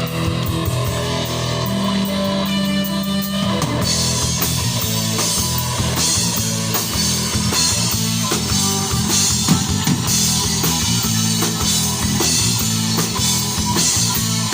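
A live rock band playing an instrumental passage with guitar and drum kit. Held chords carry the first few seconds, then the drums and cymbals come in with a steady beat about four seconds in.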